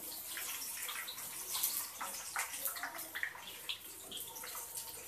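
Gram-flour batter frying in hot oil in a kadhai: a steady sizzle with many small crackles and pops.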